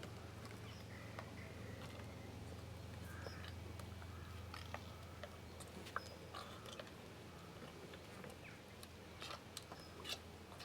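A horse chewing and mouthing after a dose of cough medicine: faint, irregular clicks and smacks over a steady low hum.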